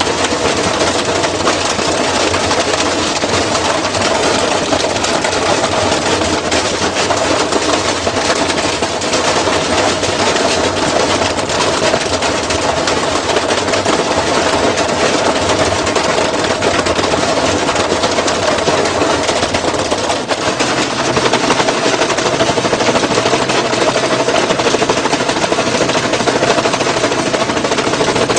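Washing machine running with a loud, continuous rapid rattling and banging over a steady mechanical drone.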